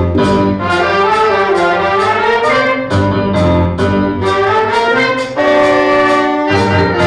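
Middle school concert band playing, with trumpets and trombones carrying sustained chords over a bass line.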